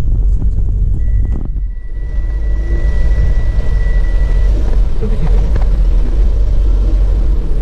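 Car running with a steady low rumble of engine and road noise. A faint steady high tone sounds in the first half, and the sound dips briefly about a second and a half in.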